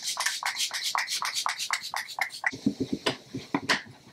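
Pump bottle of Pixi setting spray misted onto the face in quick spritzes, about six short hisses a second. About two and a half seconds in, the spritzing gives way to a lower, fluttering rush of air as the face is fanned with a piece of cardboard to dry the mist.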